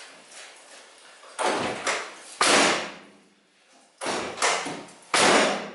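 Front cab door of a 1973 VW Bay Window camper being opened and shut twice, each time a couple of latch clicks followed by the door closing with a solid thud. The door is being tried for fit against its freshly repaired lower A-post.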